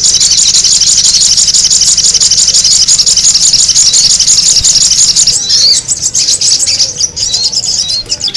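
Sogon bird calls played as a lure: loud, rapid, high-pitched chattering repeated many times a second, with brief breaks about five and a half seconds in and again near seven seconds.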